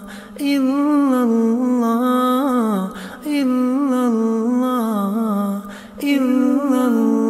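A solo voice chanting in Arabic, an Islamic chant with an ornamented, sliding melody in phrases of about three seconds, broken by two short pauses for breath.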